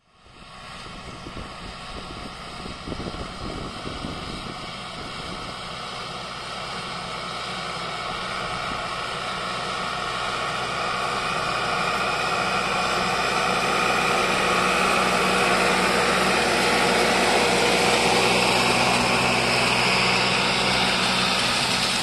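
Valtra BM100 tractor's diesel engine running steadily under load as it pulls a 40-disc eccentric disc harrow through dry soil, growing steadily louder as it approaches and passes close by. Toward the end the grinding, scraping noise of the harrow discs cutting the ground mixes in with the engine.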